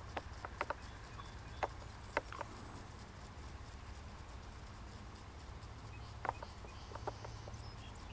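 Quiet open-air ambience with a steady low rumble and a few faint scattered clicks, most of them in the first two and a half seconds and again between about six and seven seconds in.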